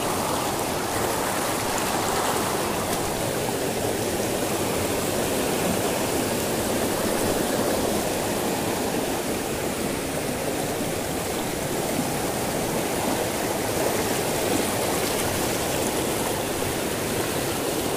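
Shallow rocky river rushing over boulders in white-water rapids: a steady, even rush of water.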